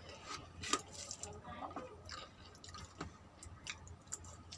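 Eating rice and vegetable curry by hand: fingers squeezing and mixing the food on a plate, then wet chewing, heard as a scatter of soft, wet clicks.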